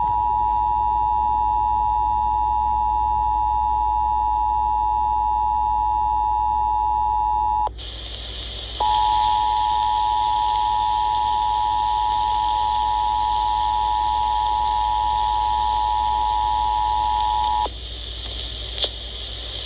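Emergency Alert System two-tone attention signal, the 853 and 960 Hz pair, sounding steadily for a national periodic test. It breaks off for about a second a little over a third of the way in, resumes, and stops near the end, leaving a background hiss.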